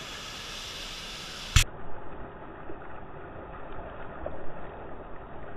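Rushing whitewater heard up close from a board riding a river chute. About a second and a half in a sharp click, after which the water sounds duller, with a few small knocks and bumps.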